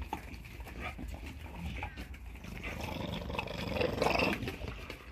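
American Bully dogs growling during rough play, getting louder a few seconds in.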